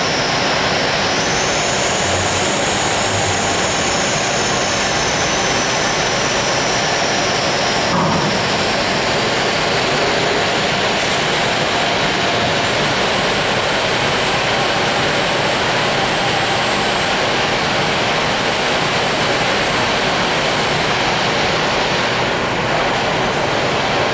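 Steady industrial machine noise from bakery dough-handling equipment, with a thin high whine from the dough-bowl lift-tipper's drive. The whine rises in about a second in and stops near a third of the way through, then a second whine runs from about halfway to near the end while the bowl is lifted and tipped.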